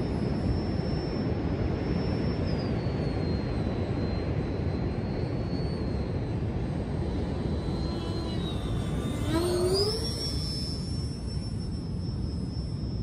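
Miniature jet turbine of a radio-controlled A-10 Thunderbolt model whining in flight. Its high whine drops in pitch a little over two seconds in. Near ten seconds it sweeps sharply back up and briefly gets louder, then holds steady again, all over a steady low rush.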